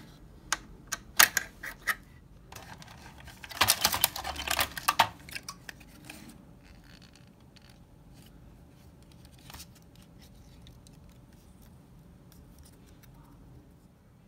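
A few sharp clicks, then a brief dense rattling clatter about four seconds in, from a CD player's plastic-and-metal disc drive mechanism being handled and lifted out of its plastic case.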